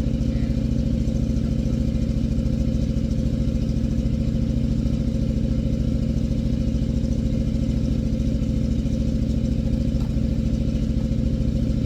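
Old International backhoe's engine running at a steady speed, with a fast, even low pulse.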